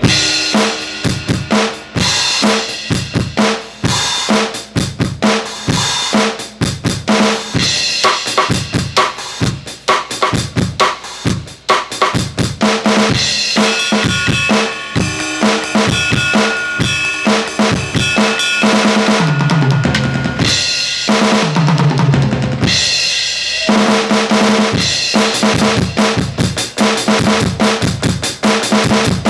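Aroma TDX15S electronic drum kit played on its rock kit preset: a continuous groove of kick, snare and cymbals, with tom fills that step down in pitch around the middle and again near the end.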